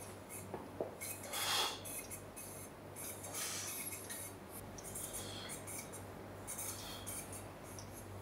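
Cable machine in use for slow external-rotation reps: the cable running over its pulleys and the weight plates lightly clinking, in short swells every second or two, over a low steady hum.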